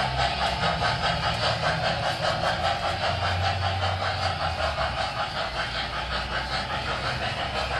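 O gauge model steam train (Walter E. Disney locomotive with passenger cars) running along the track: a steady clatter with a quick, even rhythm.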